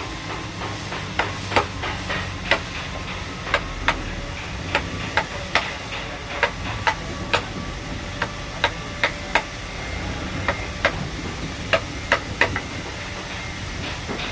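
Tool strikes on wood during hand carving: irregular sharp taps, about two a second, over a steady background hiss.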